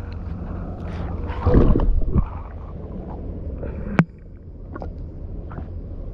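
Muffled river water sloshing and gurgling over a GoPro Hero8 Black's microphone as the camera is dipped in and out of the water, with a steady low rumble: the sound of a wet, briefly submerged mic. A louder slosh comes about a second and a half in, and a sharp knock about four seconds in.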